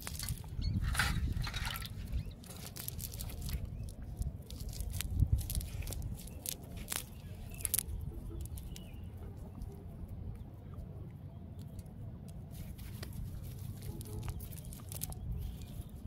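Rustling and scattered clicks of a mesh fishing net being pulled apart by hand, over a steady low rumble.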